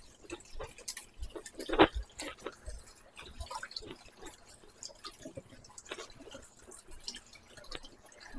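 Water dripping and splashing in a plastic basin as crab legs are washed and scrubbed by hand with a sponge: small irregular drips and splashes, with one louder splash about two seconds in.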